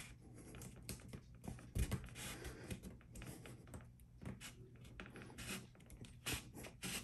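Fingers pressing and smoothing wrapping paper onto a chipboard panel: faint, irregular light taps and rustles of paper against board.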